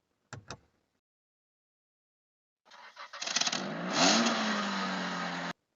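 Two quick clicks, then, after a pause, an engine revving up for about three seconds and cut off suddenly.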